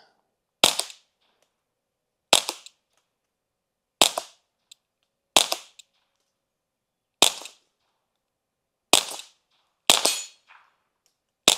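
Ruger Mark IV .22 pistol with a Q Cherry Bomb suppressor firing eight single shots, spaced roughly one and a half to two seconds apart with the last few a little quicker; each report is short and super quiet for a gunshot.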